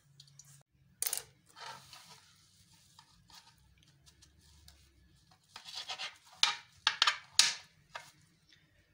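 Freshly washed cleavers (goosegrass) handled on a plastic cutting board: rustling and scraping of the wet leafy stems, then a quick run of sharp strokes in the last few seconds as a knife chops into the bunch.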